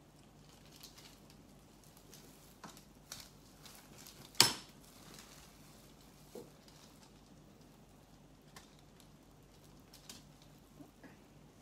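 Soft food-handling noises: cooked whole chicken being cut with kitchen scissors and pulled apart by hands in plastic gloves over a foil tray, with scattered small clicks and rustles. One sharp knock about four seconds in stands out as the loudest sound.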